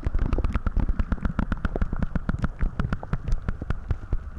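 Muffled underwater sound picked up by a camera held just below the lake surface: a low rumble with dense, irregular clicks and crackles from water sloshing and the camera being handled.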